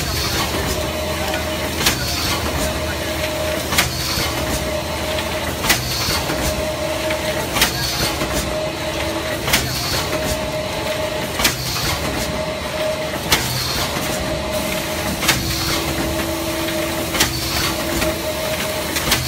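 LX3122 in-mould thermoforming machine running over a steady hum, with a sharp clack about every two seconds, one per forming-and-trimming cycle of the steel-rule-knife press at about 30 cycles a minute, each followed by a brief hiss.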